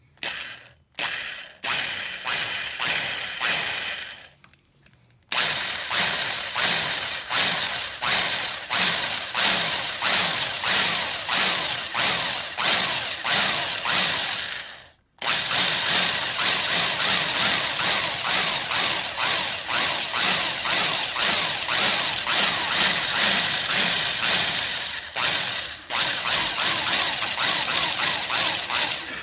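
Drill boring into the wooden fore end of a rifle stock, running in a pulsing rhythm of about two strokes a second. It stops briefly a few seconds in and again about halfway.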